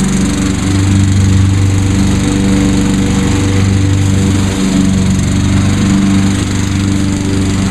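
Walk-behind rotary lawn mower engine running steadily at full throttle while mowing, its note swelling and dipping slightly with the load.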